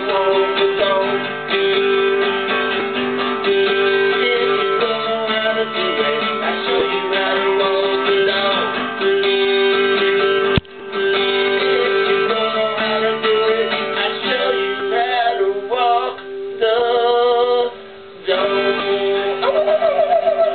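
Solo acoustic guitar playing a blues, mostly as an instrumental break, with a few short stops in the playing in the second half. A singing voice comes in near the end.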